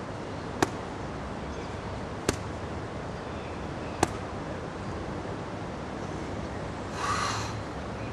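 Strikes smacking into handheld focus mitts: three sharp slaps, about a second and a half to two seconds apart.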